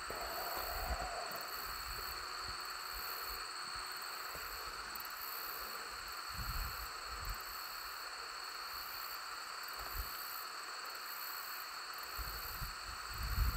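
Steady hiss with a few high, even tones, and brief low rumbles now and then.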